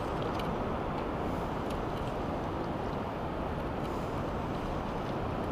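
Steady low rushing beach ambience of wind and surf, with no distinct events.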